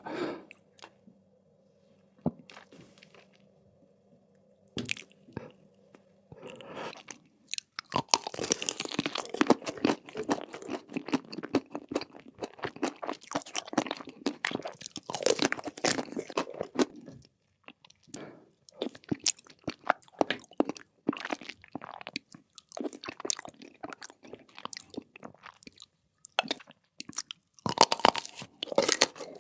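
Close-miked crunchy food being bitten and chewed, ASMR eating style: a few scattered clicks at first, then dense, crisp crunching from about eight seconds in that thins into separate crunches later, over a faint steady hum.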